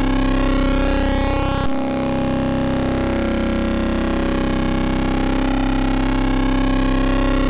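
Eurorack modular synthesizer holding a steady waveshaped C drone from a Rossum Trident oscillator run through a Klavis Mixwitch, its timbre slowly shifting as it sweeps. About two seconds in the note cuts and restarts abruptly.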